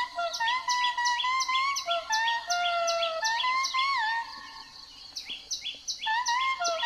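Birds chirping and whistling: quick, evenly repeated chirps over clear whistled notes that step between a few pitches. The chirping fades away just past the middle and starts again about a second and a half later.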